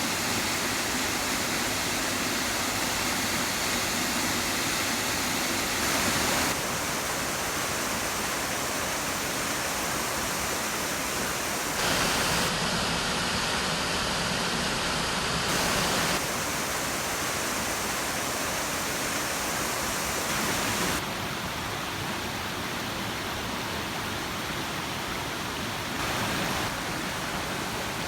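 Waterfall with water rushing down in a steady, even roar, its level and tone shifting abruptly a few times.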